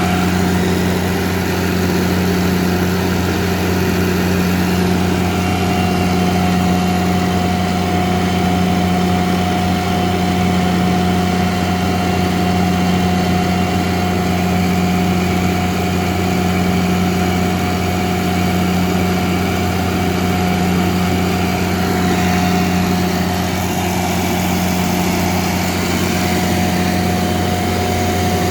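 Kohler diesel generator running at a steady, unchanging speed, with a constant low hum and drone throughout.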